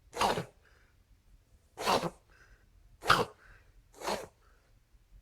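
A dog with a breathing problem forcing out four sharp, noisy sneeze-like bursts of breath, about one to one and a half seconds apart.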